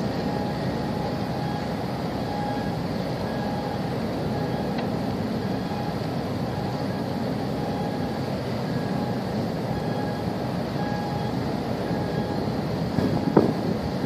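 Steady low engine rumble mixed with wind on the microphone, with a couple of short clicks near the end.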